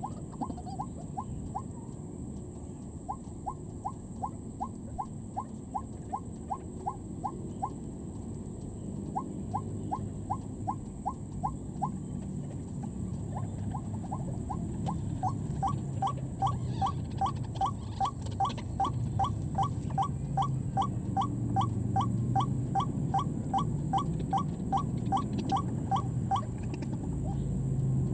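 White-breasted waterhen (ruak-ruak) calling: a short rising note repeated over and over, about two to three a second. It pauses briefly twice in the first half, then runs louder and more tightly packed in the second half.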